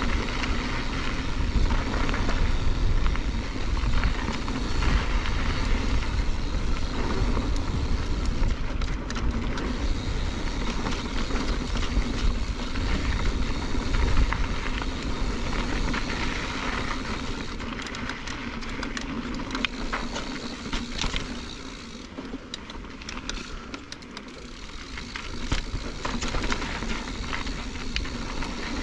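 Mountain bike rolling fast down a dirt and gravel trail: a steady rush of wind on the microphone with tyre crunch, and clicks and rattles from the bike over rough ground. The rushing eases for a few seconds near the end, leaving the clicks and rattles clearer.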